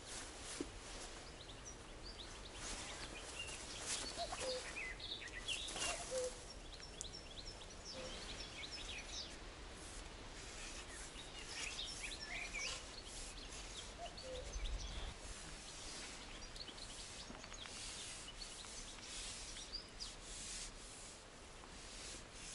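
Small birds chirping and trilling in the reeds, with rustling and rubbing as a long rod-made pole is pushed through reed stems, and a soft low thump about fifteen seconds in.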